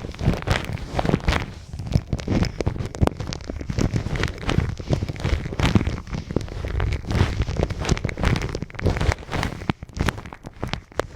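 Hands rubbing and pressing on a microphone's ears, close up: dense, irregular crackling and rustling with low, muffled rubbing underneath.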